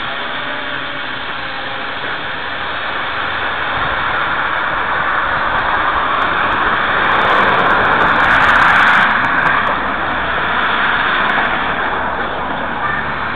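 Small quadcopter drone flying overhead, its four motors and propellers making a steady buzzing hum that grows louder about eight seconds in as it comes closer, then eases off.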